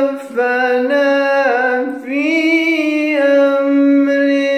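A single voice chanting Quran recitation in melodic tajweed style, holding long drawn-out notes with slow glides in pitch between the words of the verse.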